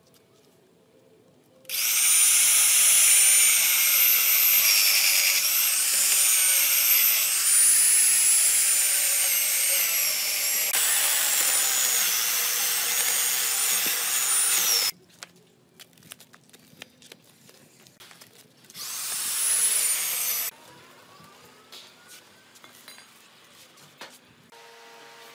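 Chainsaw cutting through a large ebony log, its whine rising and falling as the chain bites and eases, for about thirteen seconds. It stops, then runs again briefly for about a second and a half.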